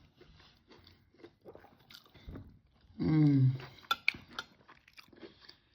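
A person chewing and biting food, with faint crunching and wet mouth clicks, a short voiced sound about three seconds in, and a few sharp clicks around four seconds.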